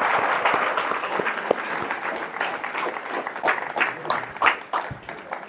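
An audience applauding, with individual hand claps standing out, thinning out near the end.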